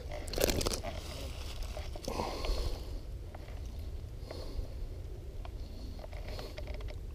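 Rustling and crunching of dry grass and handling noise, in a few short bursts over a steady low rumble.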